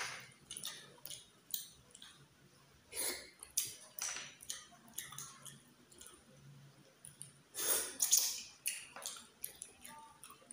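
Close-up eating sounds of a person eating snails cooked in coconut milk, picking the meat from the shells with a toothpick: short, scattered wet sucking and chewing sounds with small clicks, the loudest about three quarters of the way through.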